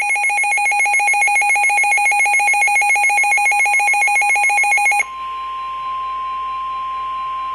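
Electronic weather-alert signal. For about five seconds there is a fast pulsing warble of beeps, then it switches suddenly to one steady high tone, the NOAA Weather Radio 1050 Hz warning alarm tone that announces a warning.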